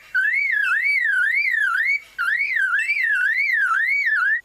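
Superb lyrebird mimicking a car alarm: a loud, siren-like warbling whoop that rises and falls about two and a half times a second, in long runs broken by brief pauses near the start and about two seconds in.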